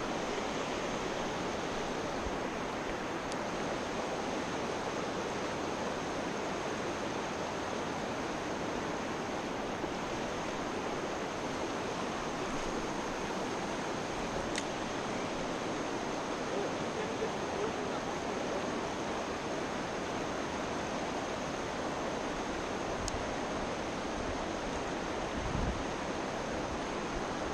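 Nolichucky River water rushing steadily, with a faint steady high tone above it.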